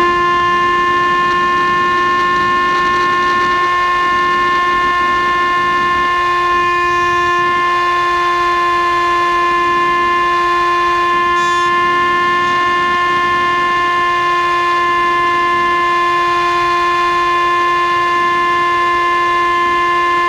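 FPV racing quadcopter's motors whining at one steady pitch with many overtones.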